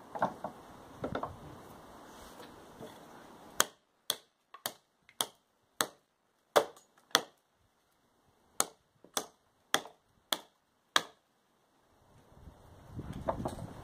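Large survival knife, an MSK-1, chopping into an upright length of wood. After a few seconds of handling, about a dozen sharp chops come roughly two a second, with a short pause midway.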